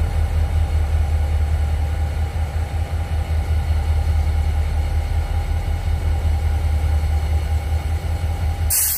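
Six-axle diesel-electric locomotive's engine idling close by: a steady low drone with a thin steady whine over it. A sudden loud burst of hiss comes just before the end.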